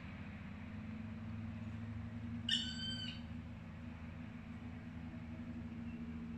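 A Norwegian Forest Cat's single high-pitched meow, about half a second long, a little over two seconds in, over a steady low hum.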